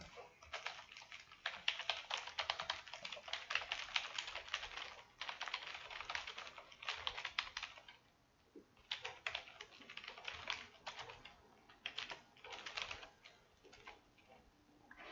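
Typing on a computer keyboard: quick runs of keystrokes with a short pause about halfway through.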